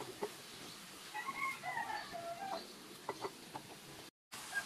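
A rooster crows once in the background, one arching call about a second in, over short clicks and scrapes of a plastic spatula tossing vegetables in a wok. The sound cuts out completely for a moment near the end.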